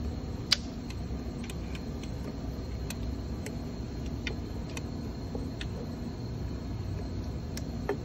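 Truck repair shop background: a steady low hum with a faint steady high-pitched whine, and scattered light clicks, the sharpest about half a second in.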